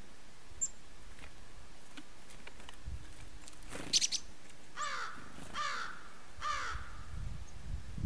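Three harsh calls from a corvid, about a second apart, each falling in pitch, just after a brief high call as chickadees arrive at the seed table.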